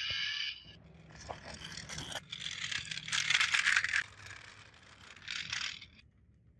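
Scraping of a scale-model Lexus SUV's small wheels rolling over rough concrete, in uneven bursts, loudest about three to four seconds in, with a shorter burst near the end.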